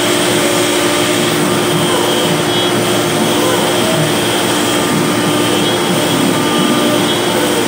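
CNC router spindle running with its bit cutting into a wood sheet, together with the rush of the dust-extraction hose at the cutting head: a steady hum and high whine over a rushing hiss.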